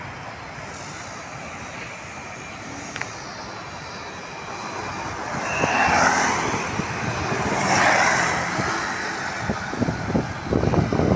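Urban road traffic: two vehicles pass close, each a rising then falling whoosh, about six and eight seconds in. Wind rumbles on the microphone near the end.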